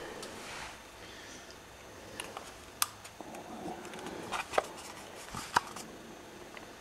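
Quiet room tone broken by about five small, sharp clicks and taps, spread between about two and six seconds in; the sharpest comes near three seconds.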